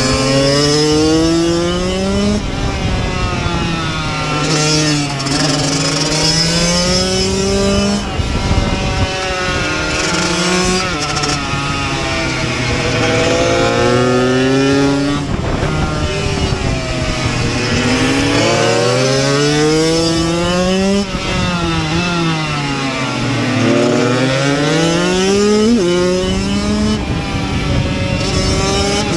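Kawasaki KX85's 85 cc two-stroke single-cylinder engine heard onboard while racing: it revs up through the gears with a short drop in pitch at each shift, then falls away off the throttle into corners and climbs again, over and over.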